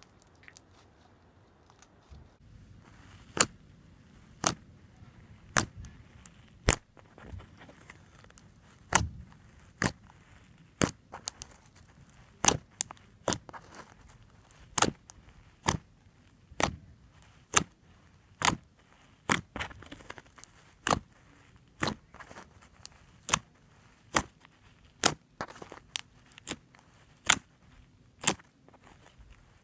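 Glue-and-borax slime being kneaded and stretched by hand, with trapped air popping out in sharp clicks about once a second.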